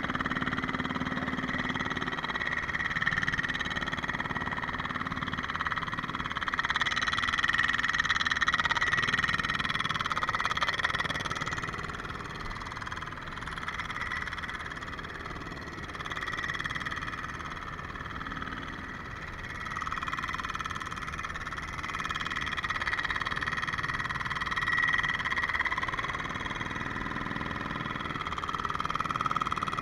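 Hydraulic backfill tamper hammering rapidly as it packs soil around the base of a wooden utility pole, a continuous chattering that swells and eases as the tamper is worked.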